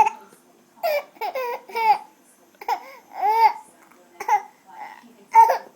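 A baby vocalizing in a string of short, high-pitched bursts, about eight of them with brief quiet gaps between.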